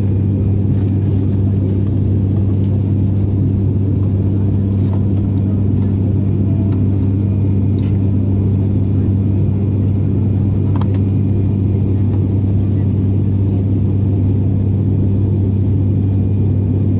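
Turboprop airliner's engines and propellers droning steadily in cruise, heard inside the passenger cabin: a deep, even hum with a strong low tone and its overtone over a rush of air.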